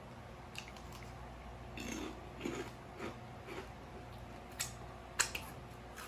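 A crunchy BBQ kettle chip being bitten and chewed close to the microphone, a few crunches about two to three and a half seconds in. Two sharp clicks follow near the end, the second the loudest.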